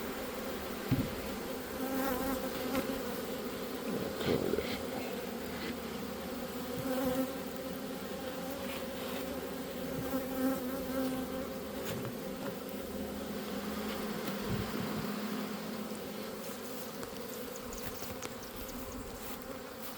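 A swarm of honey bees buzzing around a hive, a steady many-toned hum. The bees are finding their way back into the hive box after the swarm was transferred.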